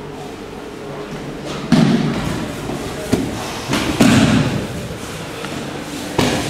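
Aikido students' bodies landing on tatami mats in breakfalls: four heavy thuds, the loudest about two seconds in and again about four seconds in, the last near the end.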